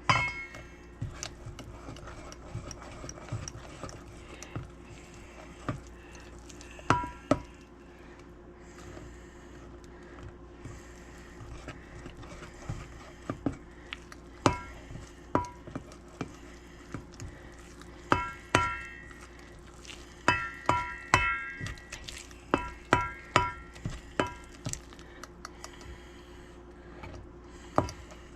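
A utensil stirring dough in a mixing bowl, knocking against the bowl in irregular runs of sharp clinks that ring briefly, thickest in the second half. A steady low hum runs underneath.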